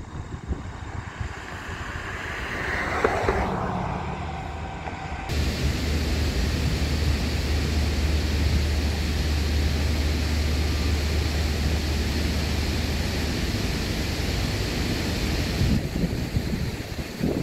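Low, steady drone of a cargo ship's engine passing close by, coming in suddenly about five seconds in, with wind rushing on the microphone.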